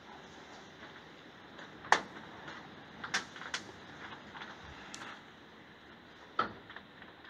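Several sharp, short clicks and knocks, the loudest about two seconds in and others near three, three and a half, five and six and a half seconds, over a faint steady hiss.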